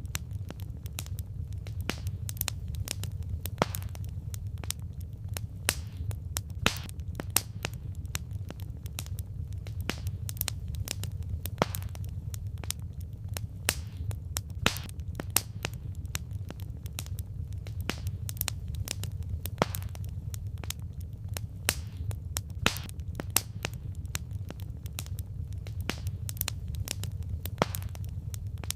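Wood fire burning, with irregular sharp crackles and pops, several a second, over a steady low rumble.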